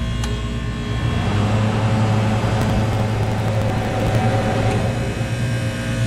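Walk-in freezer's condensing unit running: compressor and condenser fan giving a steady hum with a whirring rush over it, growing louder about a second in.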